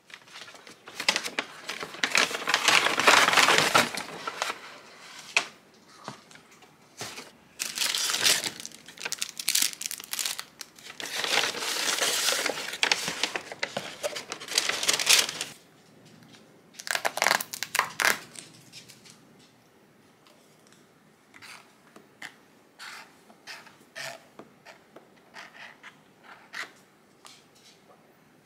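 Paper takeaway bags rustling and crinkling in several long bursts as they are opened and food is taken out of them, followed by quieter scattered taps and light crinkles of plastic food wrapping being handled.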